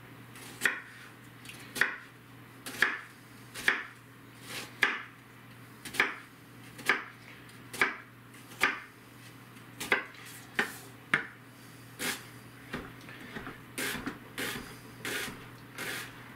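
Kitchen knife dicing an onion on a cutting board: sharp knocks of the blade on the board about once a second, coming quicker and lighter near the end.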